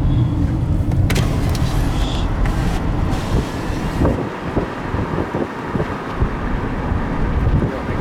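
A car driving, with a steady low road-and-engine rumble and a few brief knocks about one to three seconds in.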